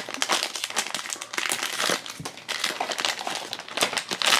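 Silver foil blind-box bag crinkling as hands tear it open and work the figure out, a dense run of quick irregular crackles.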